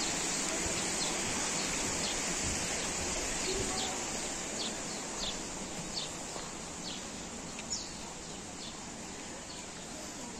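Small birds chirping repeatedly, with short high downward-sweeping notes about every half second, over a steady rushing outdoor noise that eases a little in the second half.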